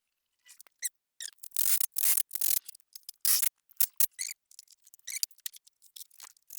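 Hand ratchet wrench clicking in irregular strokes, with short rasping runs, as a nut is run down and tightened on the compressor mounting bolt.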